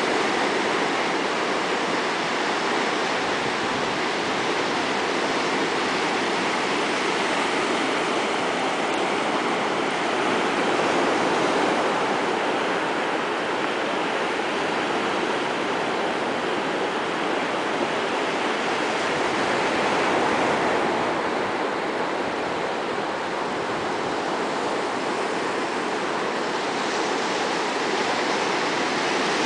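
Surf breaking on a sandy beach: a steady, even rush of waves with no separate sounds standing out.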